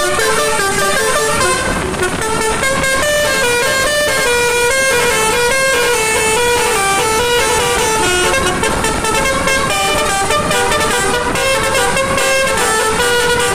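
Telolet basuri musical car horns playing a fast tune without a break, the notes stepping up and down several times a second.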